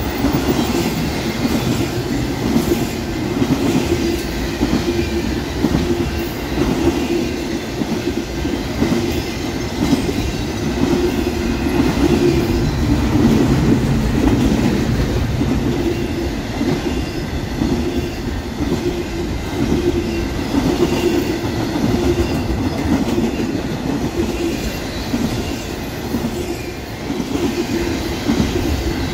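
A train's cars rolling past on the rails: a loud, steady rumble of wheels on track that keeps on without a break.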